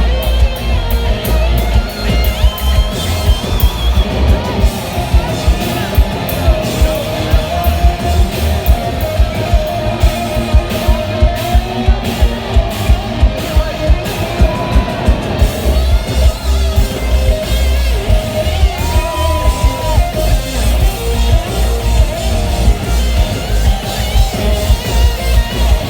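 Live country-rock band playing loud, with electric guitars over a steady, heavy drum beat and a singing voice.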